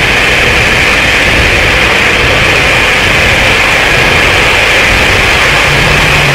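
Harsh noise music: a loud, unbroken wall of hiss and low rumble, brightest in a band high in the middle range, with no beat or melody.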